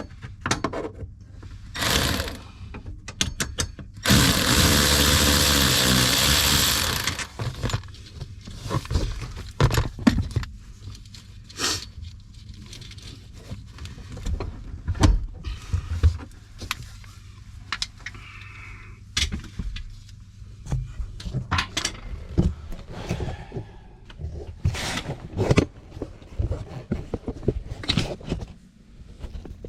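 A handheld power tool runs steadily for about three seconds, a few seconds in, backing out the inverter's mounting fasteners. Around it come scattered clicks, knocks and clanks of hand tools, bolts and washers being handled.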